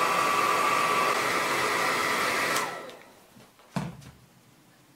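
A small electric blower motor running with a steady whine over a rush of air, switched off a little over halfway through and winding down. A single knock follows about a second later.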